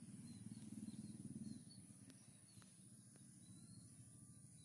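Near silence: faint background noise with a low hum, a little louder in the first second and a half, and faint high chirps and ticks.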